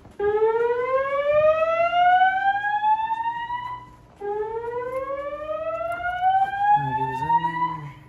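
Wheelock ceiling speaker strobes on a Notifier voice-evacuation fire alarm system sounding the whoop evacuation tone: two loud rising sweeps, each about four seconds long, with a short break between them.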